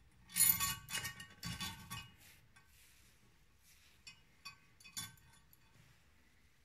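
Small metal parts clinking and rattling against each other while valve parts of a Mercedes OM615 diesel cylinder head are handled with tools: a quick cluster of clinks in the first two seconds, then a few single sharp clinks about four to five seconds in.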